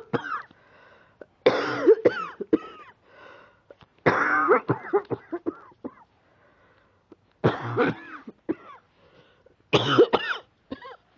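A woman's lingering chest cold cough, in five fits of several quick coughs each, a few seconds apart, with breaths drawn between the fits.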